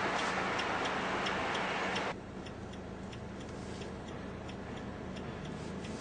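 Steady ticking of a vehicle's hazard-light flasher relay inside the van cabin, about two and a half ticks a second, over a background hiss that drops away about two seconds in.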